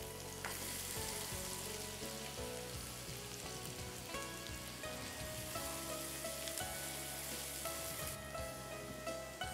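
Chopped onions sizzling in hot oil in a wok, a steady frying hiss, with soft background music of held notes underneath.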